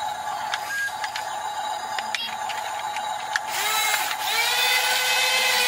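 Electric motors of radio-controlled toy construction machines (an excavator and a bulldozer) whining steadily, with small clicks of their gears. About three and a half seconds in, a second, louder whine with a higher edge joins as a machine drives harder.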